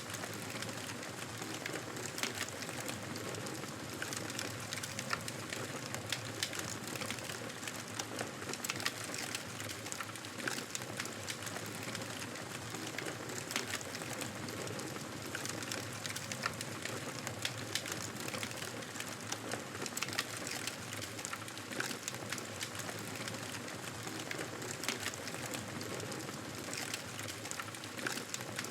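Wood fire burning in a fireplace: a steady hiss of flames with frequent irregular crackles and pops throughout.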